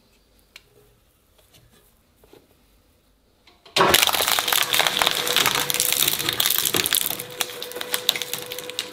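A few seconds of near quiet with faint handling clicks. Then a twin-shaft shredder's blades bite into a plush toy: a sudden loud tearing and crackling over the machine's steady motor hum, easing off a little near the end.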